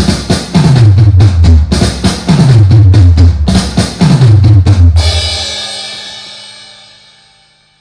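Outro music: a fast drum beat with a deep bass that slides down in pitch again and again, ending on one cymbal crash about five seconds in that rings out and fades away.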